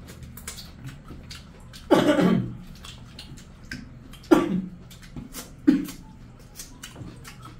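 Close-up eating sounds: fingers mixing rice and curry on steel plates, with lip-smacking and chewing as small clicks throughout. Three short, loud voice sounds (grunts or coughs) from the eaters stand out about two, four and nearly six seconds in, each falling in pitch.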